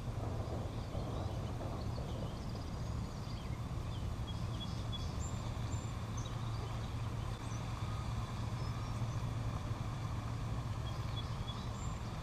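Steady low outdoor rumble with faint, short bird chirps here and there above it.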